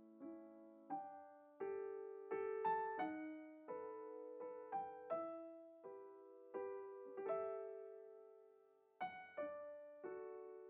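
Solo piano music: slow single notes and chords, each struck and left to ring out.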